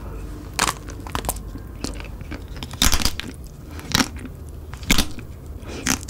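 Biting and chewing a chocolate-coated ice cream bar on a stick: sharp cracks of the hard coating breaking, about one a second, between softer chewing.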